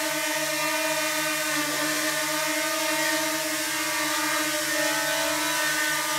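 DJI Mini 2 quadcopter's propellers running, a steady even buzzing whine that holds its pitch.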